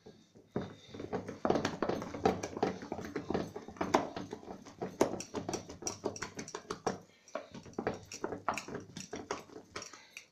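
A spoon beating and scraping thick cream against the side of a steel pot, a quick, uneven run of knocks and scrapes starting about half a second in. The cream is churning into butter, with the milk separating out.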